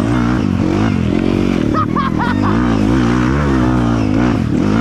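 Dirt bike engine revving up and down again and again while riding off-road.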